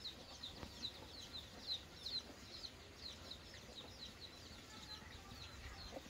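Chicks peeping: many short, high, falling chirps, several a second and overlapping, heard faintly.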